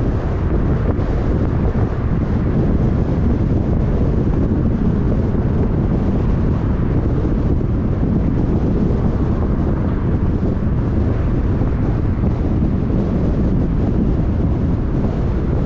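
Steady low rumble of wind buffeting the microphone, mixed with road noise from a moving car.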